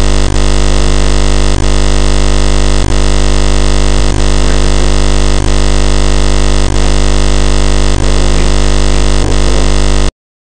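Loud, distorted background music: a dense synth-like drone of many steady tones with a short dip about every 1.3 seconds. It cuts off suddenly just before the end.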